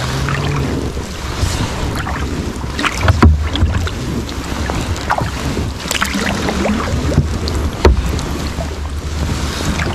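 Sea kayak paddling: double-bladed paddles dipping and splashing in calm water with a steady wash of water along the hull, some sharper splashes or knocks, the strongest about three and eight seconds in, and wind buffeting the microphone.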